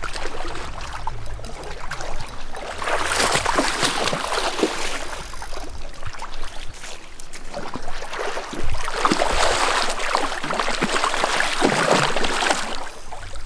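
A hooked salmon thrashing and splashing at the surface of a shallow river as it is played in, over the running current. The splashing picks up a couple of seconds in and goes on in repeated splashes.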